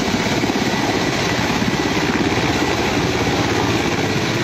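Mil Mi-8-family military transport helicopter hovering close by: a loud, steady, rapid chop of the main rotor blades.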